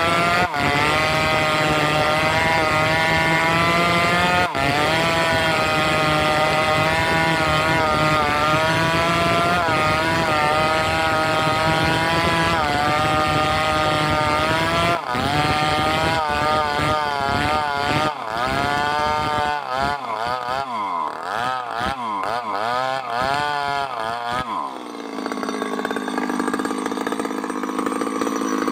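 Two-stroke chainsaw running at high revs in a cut, then its pitch wavering rapidly up and down for several seconds, and near the end dropping to a lower, steady idle.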